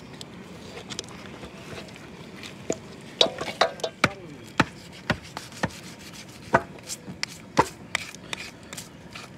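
Kitchen knife cutting through a raw pig's head over a steel basin: after a quiet start, a run of sharp, irregular clicks and knocks begins about three seconds in.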